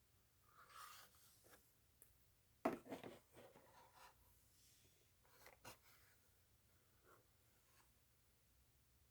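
Faint handling noises: soft rubbing and scraping, with a sharper tap or click about two and a half seconds in and a couple of smaller clicks a little after halfway.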